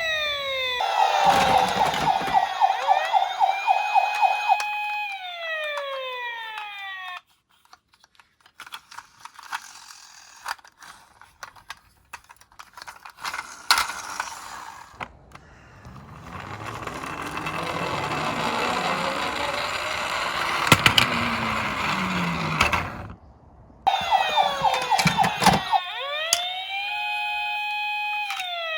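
Electronic toy siren sounding in pulsing, gliding tones, then dropping away in falling glides. Small clicks and rattles follow, then a louder rushing stretch with slow falling tones, and the siren starts up again near the end.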